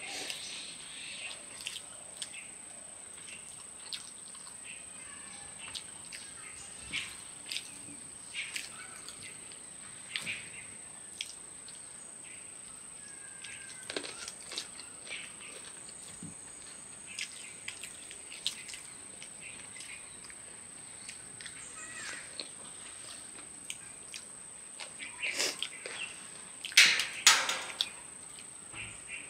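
Close-up mouth sounds of people eating biryani by hand: scattered chewing and lip-smacking clicks, loudest in a cluster near the end. They sit over a steady high-pitched drone of crickets.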